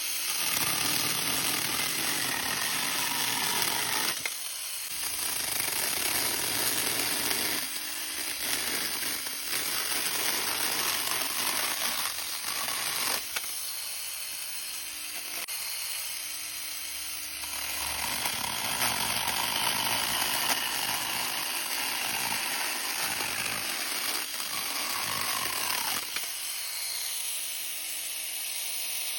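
Small cordless battery-powered chainsaw cutting through firewood: a steady motor whine and chain rasp that eases and builds again several times as the load on the chain changes.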